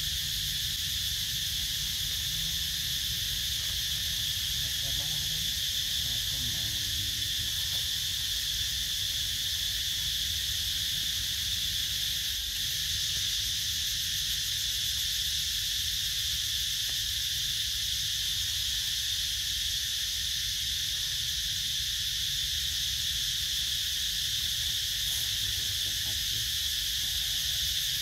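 Steady, high-pitched chorus of insects, with a low rumble underneath.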